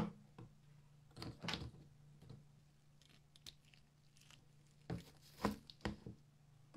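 Hand work on the parts of a rusty antique adjustable wrench: about eight short, faint scrapes and clicks scattered over several seconds, the loudest about five and a half seconds in, over a faint steady low hum.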